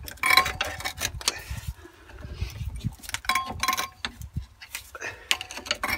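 Metal clinks, knocks and scrapes as a Mercedes Sprinter's front brake caliper is levered with a screwdriver and worked off the brake disc, with a few clinks that ring briefly.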